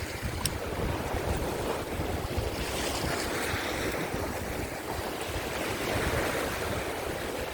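Waves surging and breaking on rocky shore, with strong gusty wind buffeting the microphone. The wash swells about three seconds in and again near six seconds.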